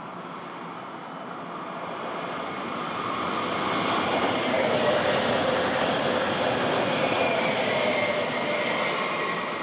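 Eurobahn Stadler FLIRT electric multiple unit passing by on the line: rail and wheel noise builds to its loudest about halfway through and then starts to fade as the train moves off, with a faint steady whine.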